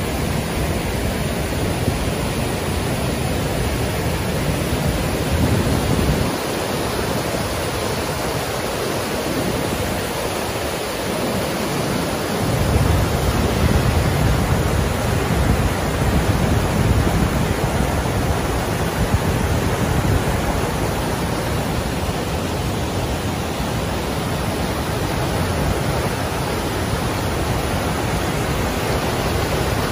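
River whitewater rushing and churning down granite chutes and small cascades, a loud steady rush. The deep part of the rush thins out for several seconds about a fifth of the way in, then returns stronger.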